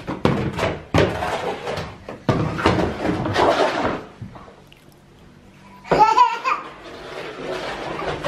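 A plastic baby bathtub scraping in several long drags across a hard tiled floor. A toddler gives a short high laugh about six seconds in.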